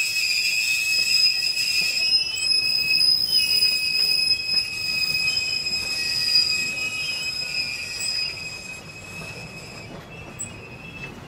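Steel wheels of slow-moving passenger coaches squealing against the rails: a steady high-pitched squeal in two tones that waver slightly, fading away near the end.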